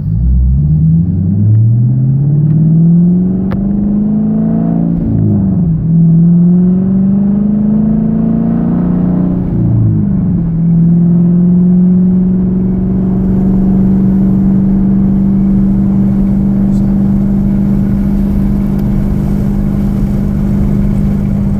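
2014 Dodge Challenger R/T's 5.7-litre Hemi V8, straight-piped with catalytic converters only and no mufflers or resonators, heard from inside the cabin with the windows down. The engine pulls up through the gears of its six-speed manual, its pitch climbing and then falling at each of three upshifts in the first ten seconds. It then settles to a steady cruise.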